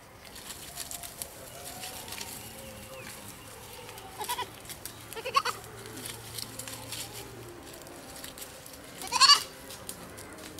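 Goat bleating, three short calls about four, five and nine seconds in, the last the loudest, over light rustling and crackling of leaves and twigs.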